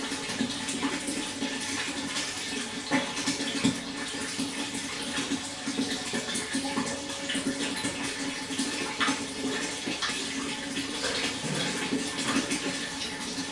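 Water flowing steadily, with many small irregular splashes.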